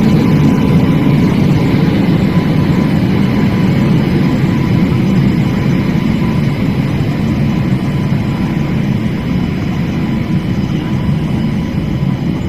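Express train's LHB passenger coaches rolling past the platform on arrival: a steady low rumble that grows gradually quieter as the train slows.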